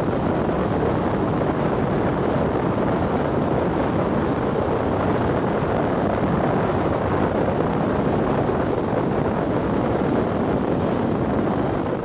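Steady rush of wind on the microphone and water along the hull of a motor yacht under way.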